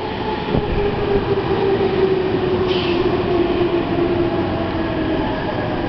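Nankai 2000 series electric train pulling into the platform and braking: a steady traction-motor whine slowly falling in pitch over the rumble of wheels on rails, with a short high hiss about three seconds in.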